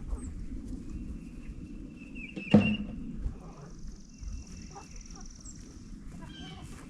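Outdoor farm sound: small birds chirping, with a high buzzing trill lasting a few seconds in the second half. A single sharp knock about two and a half seconds in is the loudest sound, over a steady low rumble.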